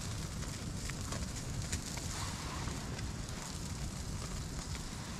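Wood campfire burning: a steady hiss with a few light crackles.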